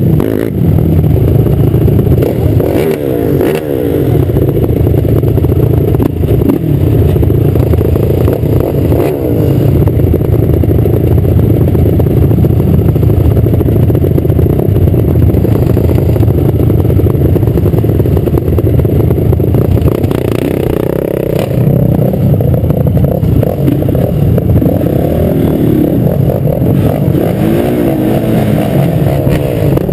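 Honda 450 sport quad's single-cylinder four-stroke engine running hard while riding on sand, its pitch rising and falling repeatedly as it revs, most clearly in the second half.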